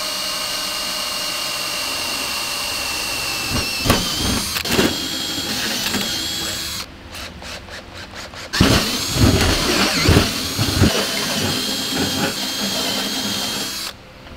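Cordless drill boring through sheet steel. The motor whines steadily and its pitch drops as the bit comes under load. It breaks off briefly with a rapid clicking, runs again with loud uneven knocks as the bit bites, and then stops abruptly.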